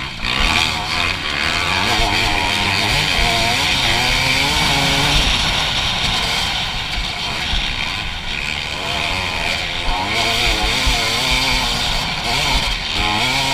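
Dirt bike engine under way, its revs rising and falling again and again as the rider accelerates and backs off the throttle.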